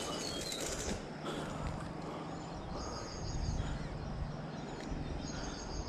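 Outdoor riverside ambience: a steady low background noise, with faint high chirps twice, about three seconds in and again near the end.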